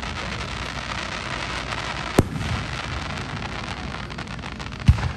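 Aerial fireworks: a dense, steady crackle with two sharp bangs, about two seconds in and again near the end.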